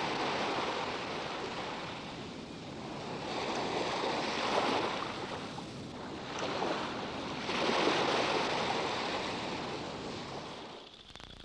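Sea water washing and splashing in uneven surges every few seconds, fading near the end.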